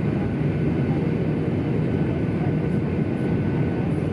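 Steady cabin noise inside a Boeing 737-800: an even drone of engines and airflow with faint steady whines on top.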